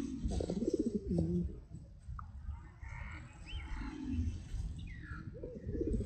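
Rock pigeons cooing: low, rolling coos in a cluster near the start and again near the end, over a steady low rumble.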